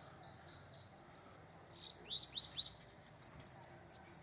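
Bananaquit (sibito) singing: a fast, high-pitched run of short downward-sweeping notes, breaking off briefly about three seconds in and then starting again.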